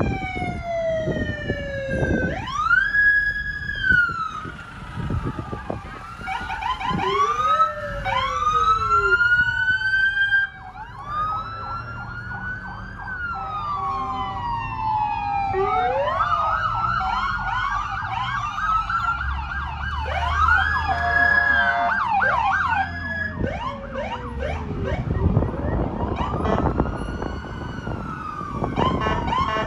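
Several American police car electronic sirens sounding at once, their wail and yelp tones rising and falling over one another, with a rapid yelp about twenty seconds in.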